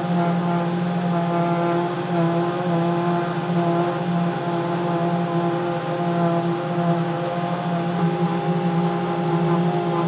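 Slipform concrete paving machine running steadily as it extrudes a concrete curb: an even, unbroken mechanical drone with a pitched hum.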